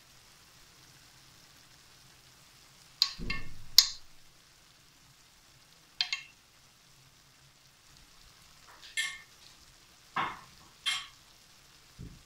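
A metal spoon clinking against a glass bowl and the pan as spoonfuls of khoya are dropped onto zarda rice: about seven short clinks, spaced irregularly, over a faint steady sizzle from the pan.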